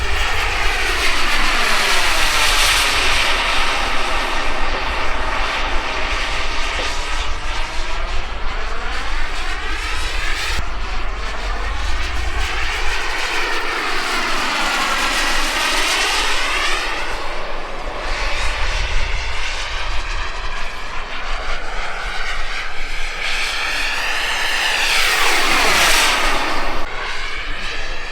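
Starfire RC jet's model turbine engine whining through repeated fast passes. The pitch swings up as the jet approaches and falls away as it recedes, several times over, with the loudest pass and a sharp drop in pitch near the end.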